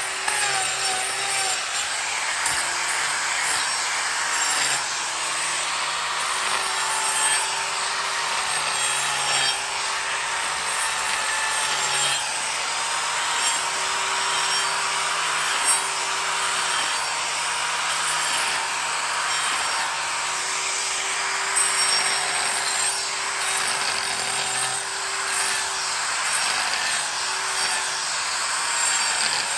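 Corded electric angle grinder running steadily, its disc grinding away wood; the motor's whine dips slightly in pitch now and then as the disc bites under load.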